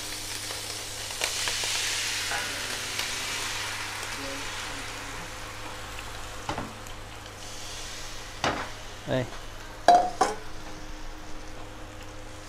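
Bánh xèo batter sizzling as it is poured into a hot wok, loudest in the first few seconds and then settling. Several sharp metal clicks and knocks in the second half, the loudest about ten seconds in.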